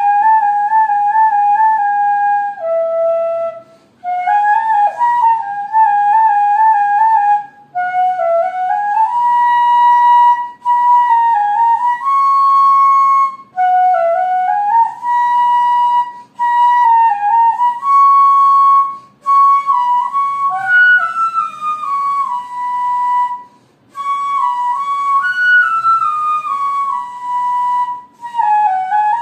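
Background music: a solo flute melody played in short phrases with quick trills and stepwise runs, pausing briefly every few seconds.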